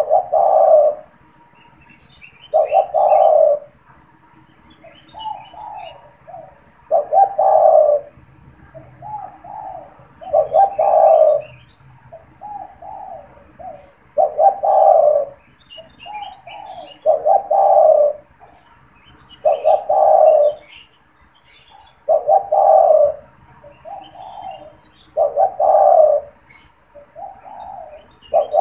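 Spotted dove (tekukur) cooing over and over, about nine loud coo phrases, one every 2.5 to 4 seconds, with softer notes between them. Small birds chirp faintly in the background.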